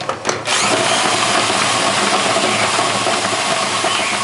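Cordless drill spinning a homemade sandpaper-lined potato peeler: a motor whir with potatoes scraping and tumbling against the sandpaper. It starts up about half a second in after a few clicks and then runs steadily.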